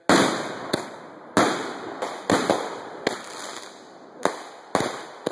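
Fireworks bursting in quick succession during a grand finale: about nine sharp bangs in five seconds, each fading away before the next.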